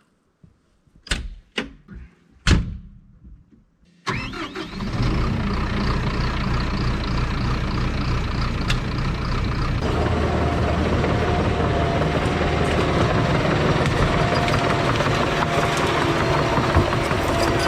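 A few sharp knocks, then a John Deere 650K bulldozer's diesel engine starting about four seconds in and running steadily; a steady higher whine joins about ten seconds in.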